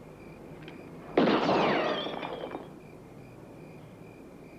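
A single revolver shot about a second in, sharp at the start, with an echoing tail that dies away over about a second and a half.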